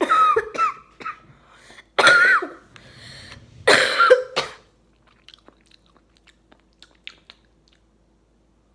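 A boy coughing three times, each cough with a high-pitched voiced edge, while chewing a gummy candy. After the coughs, only faint mouth clicks from chewing.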